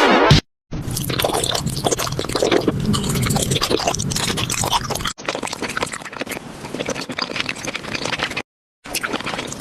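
Close, crackly crunching and scraping noises, dense with fine clicks, in three stretches broken by short silent cuts.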